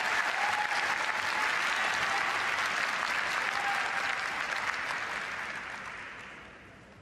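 Audience applauding; the applause dies away over the last two seconds.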